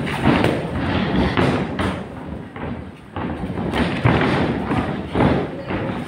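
Boxing sparring: gloved punches landing and boxers' feet hitting the ring canvas, an irregular string of dull thumps.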